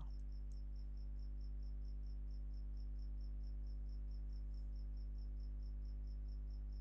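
Quiz countdown-timer ticking sound effect: short, high-pitched ticks at an even pace of about five a second, over a steady low electrical hum.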